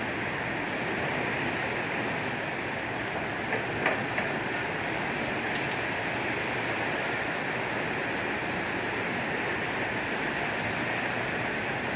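Heavy thunderstorm rain and wind, a steady rushing hiss, with a few short knocks about four seconds in.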